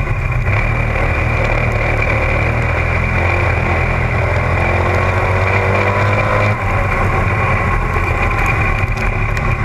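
Dirt-track Spec Modified race car's engine running continuously at speed, heard from a camera mounted in the open cockpit. There is a short dip in loudness about two-thirds of the way through.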